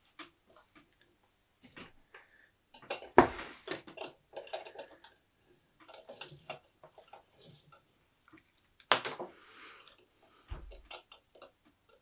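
Handling noise at a workbench: scattered clicks and knocks as a small bench vise is adjusted and a soldering iron and wires are handled, the sharpest knocks about three and nine seconds in.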